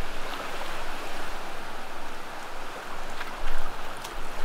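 Ocean surf washing up a shallow sandy beach in a steady hiss, with wind buffeting the microphone in a gust about three and a half seconds in.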